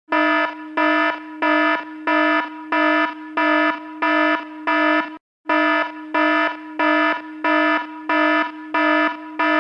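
Electronic alarm buzzing in a steady repeating pulse, about one and a half beeps a second over a continuous lower buzz. It breaks off for a moment about five seconds in.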